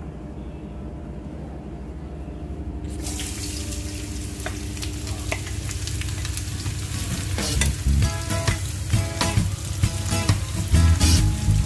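Sliced red onions hit hot oil in a frying pan and start sizzling, a sudden hiss about three seconds in. A spatula then stirs them in the pan, its knocks and scrapes over the sizzle growing louder near the end.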